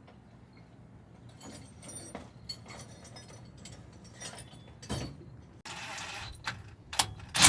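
Metal parts and hand tools clinking and knocking during mechanical work, with a hiss lasting about a second a little before the end and two loud sharp knocks near the end.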